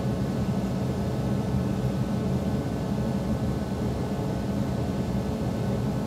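Steady low mechanical hum over a hiss.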